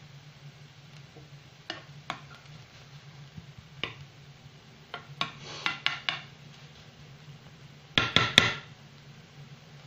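A spoon scraping and knocking against a frying pan while chopped green peppers are stirred, with scattered clicks and a quick run of louder knocks near the end, over a steady low hum.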